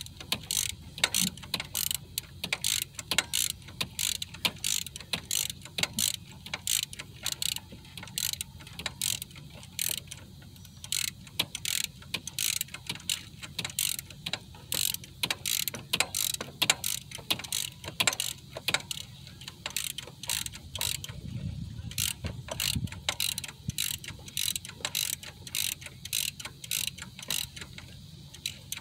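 Hand ratchet clicking in steady runs of about two to three clicks a second as bolts on a replacement alternator on a Chevy 5.3 LS V8 are turned.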